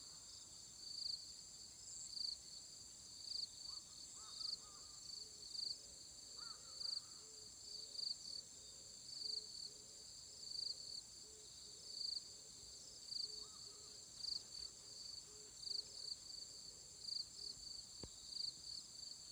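Chorus of autumn insects singing: a steady high-pitched trill under a pulsing song that swells about once a second. A few faint short calls sound now and then beneath it.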